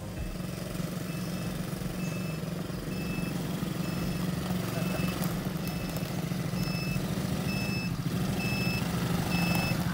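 Small ATV engines running as two quad bikes drive closer, growing gradually louder. A short high beep repeats about once a second over the engine sound.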